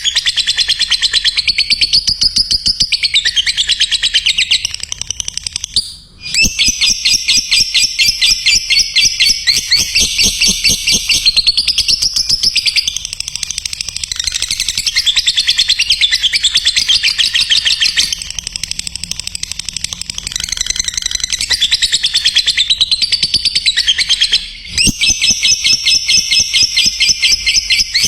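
Lovebird singing a long 'ngekek', a rapid, unbroken run of shrill chattering notes, with brief breaks about six seconds in and near the end.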